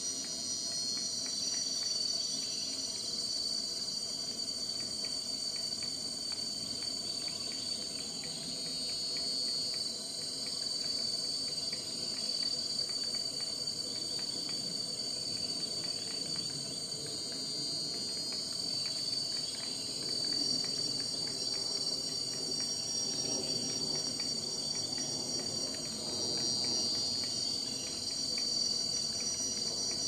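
Steady high-pitched insect chorus of several continuous tones, swelling briefly about every eight or nine seconds, with faint irregular tapping of an orange-backed woodpecker's bill chiselling at the bark of a tree trunk.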